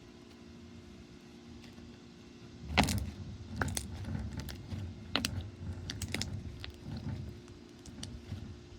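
Slime being squeezed and kneaded by hand, with irregular sharp pops and clicks that start about three seconds in, over a low squishing rumble.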